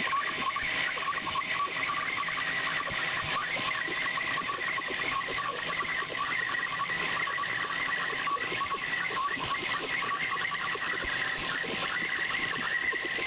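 Horizontal bandsaw blade cutting through a thick bar of 15-5 PH stainless steel. A steady hiss runs under a high, wavering squeal of blade teeth on the steel.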